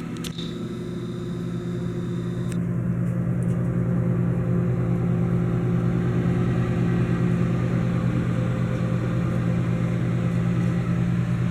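Kenmore microwave oven running, heating a cup of water: a steady electrical hum from the magnetron's transformer and fan, with a faint high whine in the first couple of seconds.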